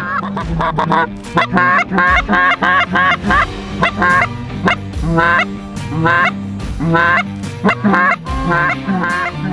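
Canada goose honks and clucks in quick runs of short notes, each with a wavering, breaking pitch, over a steady low background music track.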